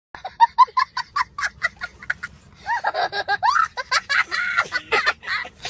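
Laughter: a run of quick, short high-pitched bursts, then longer laughs that rise and fall in pitch.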